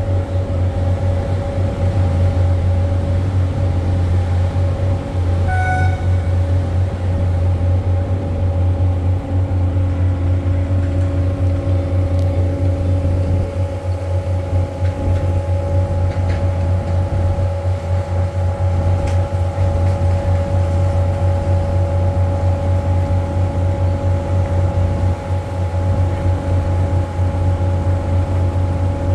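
River cruise boat's engine running steadily: a loud, even low drone with a constant hum above it. A short high tone sounds once about six seconds in.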